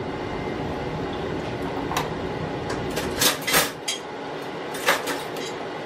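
Kitchen clatter from handling a plastic water bottle and plastic mixing bowls on a countertop: a few short knocks and rustles about two seconds in, a cluster around three and a half seconds, and one more near five seconds, over a low steady background hum.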